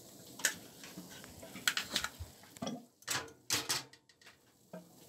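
Hand can opener working on a tuna can, and the tuna worked out into a plastic bowl: a string of short, irregular metallic clicks and scrapes.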